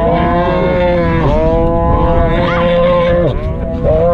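A calf bawling while held down for castration: three long, loud bawls in a row, the middle one drawn out for about two seconds, the last starting near the end.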